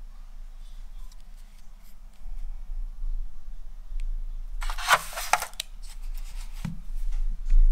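Hands handling unboxing packaging: light clicks, then a burst of crinkling and rustling lasting about a second, about five seconds in, and a soft thump shortly after as something is set down. A steady low hum runs underneath.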